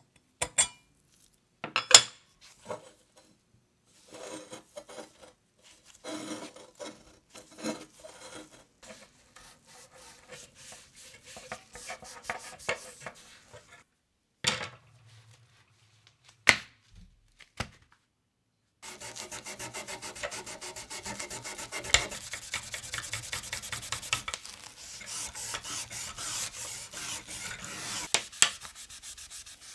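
Rusty metal lamp part being worked by hand with an abrasive: irregular scraping strokes at first, then about ten seconds of rapid, steady back-and-forth rubbing in the second half. A few sharp knocks come near the start and in the middle.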